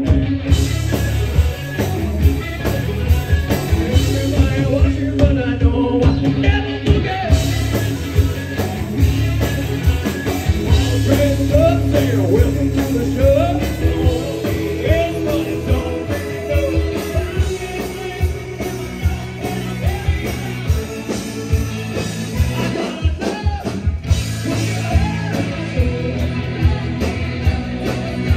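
Live rock band playing: a woman singing lead over electric guitars and bass, with a steady beat.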